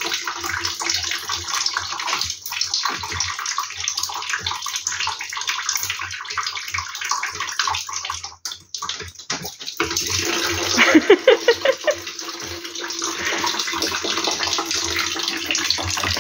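Rainwater trapped in a leaking caravan ceiling running in a steady stream through holes pierced in the ceiling and splashing into a plastic bucket. It gets briefly louder, with a rising pitch, about two-thirds of the way through.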